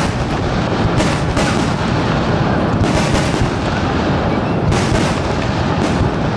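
Fireworks barrage of coloured senrin (thousand-ring) shells: many bursts in quick overlapping booms over a continuous rumble, with sharper reports standing out about a second in, near three seconds and near five seconds.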